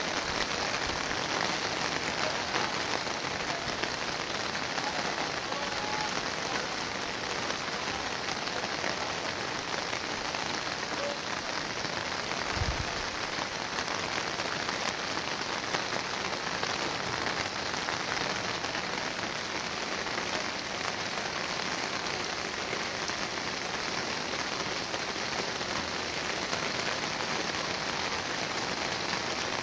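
Steady rushing hiss of water, with a single brief low thump about halfway through.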